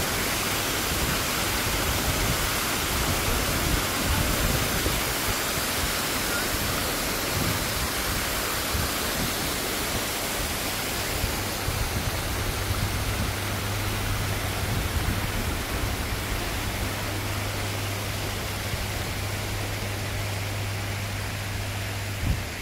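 Steady rushing and splashing of running water. A low steady hum joins about halfway through and stops just before the end.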